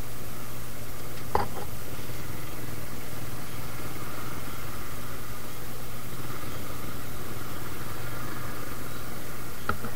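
Suzuki Gixxer motorcycle engine running steadily at low revs, with a brief sharp sound about a second and a half in.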